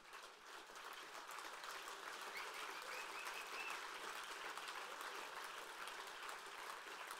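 Audience applauding, fairly faint, building up over the first second and then holding steady.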